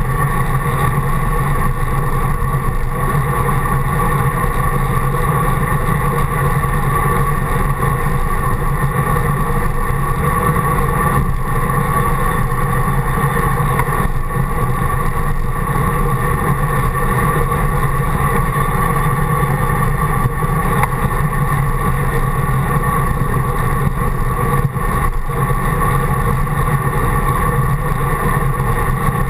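Steady rush of wind and road noise on a handlebar-mounted action camera as a road bike rolls along a paved path, dulled and droning through the camera's housing.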